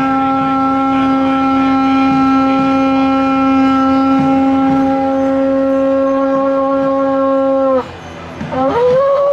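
A hand-held horn blown in one long, loud, steady note that dips and cuts off about eight seconds in. It sounds again near the end, sliding up to a higher note.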